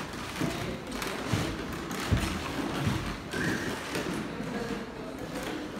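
Footsteps of several people walking on a hardwood floor: irregular low thuds and taps.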